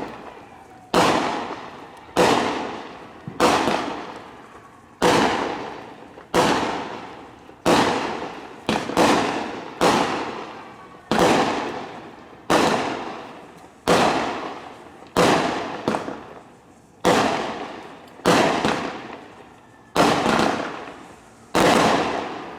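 Fireworks going off in a steady string of loud bangs, about one every second and a bit, each echoing away before the next.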